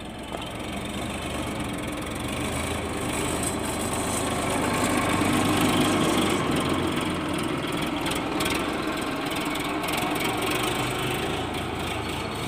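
Sonalika tractor's diesel engine running under load as it tows a loaded soil trolley close past, growing louder to a peak about halfway through and easing off after.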